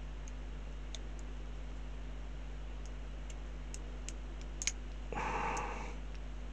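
Scattered light clicks from small plastic model-kit parts being handled and trimmed, with a short scrape about five seconds in, over a steady low hum.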